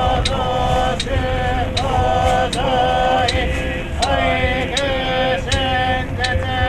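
Buddhist sutra chanting by male voices in unison on near-monotone held pitches, kept in time by a regular knock about every three-quarters of a second.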